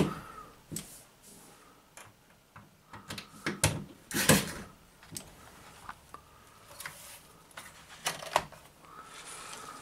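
A cordless drill and handling knocks as a metal bracket is screwed to the wall: scattered clicks and knocks, with one short, louder run about four seconds in.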